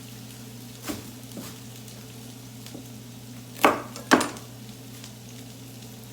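Knife work on a cutting board: a few light taps, then two sharp knocks about half a second apart in the middle. Underneath are a faint sizzle of vegetables frying in oil in the pan and a steady low hum.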